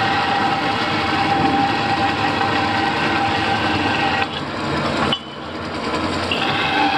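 Vertical bandsaw running and cutting a workpiece fed by hand: a steady mechanical whine over a dense noise. It drops sharply about five seconds in, then builds back up as the cut goes on.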